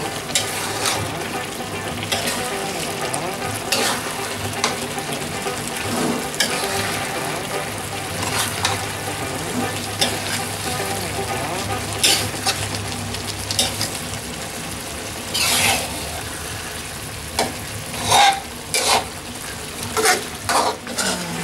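Tuna pieces in chili sauce sizzling in an aluminium wok as the sauce cooks down. A metal spoon stirs and scrapes against the pan, with scattered clinks that come more often and louder in the last few seconds.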